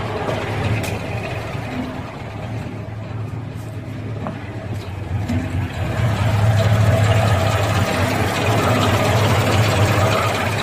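KamAZ truck's diesel engine idling steadily, getting louder about six seconds in.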